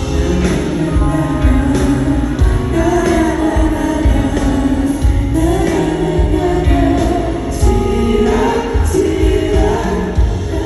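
Live pop music played loud through a concert sound system, with a singer's melody over a heavy, pulsing bass. This is a sound-check run-through of a song.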